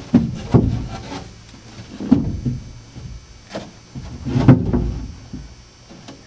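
A few dull, hollow knocks and thumps as the boat's L-seat base is shifted and pressed into place under the lifted dash. The loudest knock comes about four and a half seconds in.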